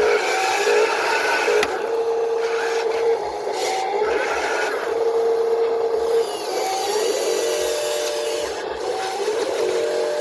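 Small electric motors of RC construction models whining in steady tones that start and stop, with several at once near the end, over a continuous scraping, rasping noise.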